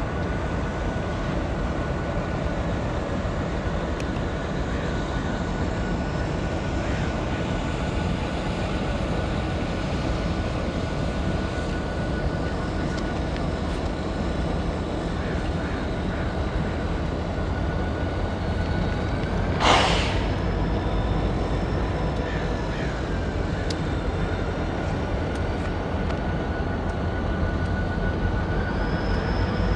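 EMD SD40-2 diesel locomotive rumbling steadily at low speed as it approaches at the head of a passenger train, growing a little louder near the end. A short, sharp hiss cuts in about two-thirds of the way through.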